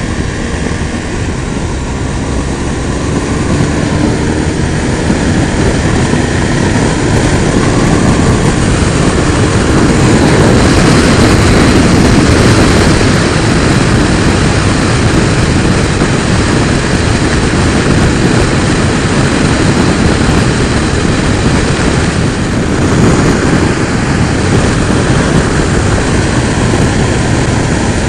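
Motorcycle riding along, with a loud steady rush of wind over the microphone and the engine running underneath. It grows louder over the first several seconds as the bike picks up speed.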